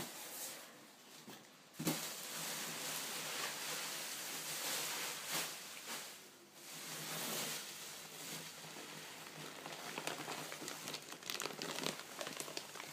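Plastic bags crinkling and rustling as they are handled inside a polystyrene shipping box, with scattered crackles and a sharp knock about two seconds in.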